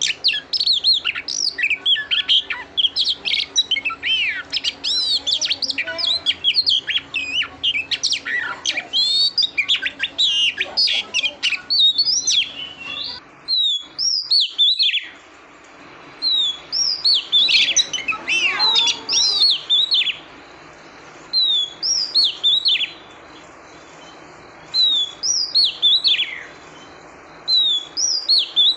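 Female Oriental magpie-robin singing, the kind of call used to excite males: a dense run of quick, varied whistled notes and trills for about thirteen seconds, then after a short break, spaced short phrases of a few sweeping whistles.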